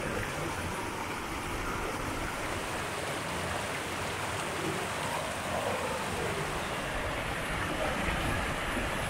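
Mountain creek rushing over rocks in small cascades: a steady, even rush of water.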